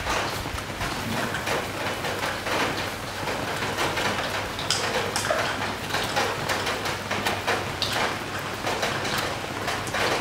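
Steady rain falling, with many small irregular drip-taps over an even hiss and a low steady hum underneath.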